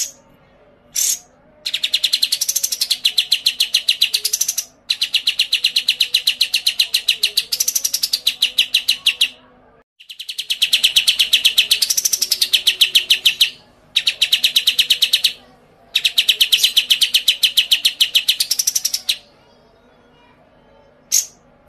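A songbird giving long, very fast, even trills of sharp high notes, about a dozen a second, in five bouts, with a couple of single sharp chips at the start and near the end.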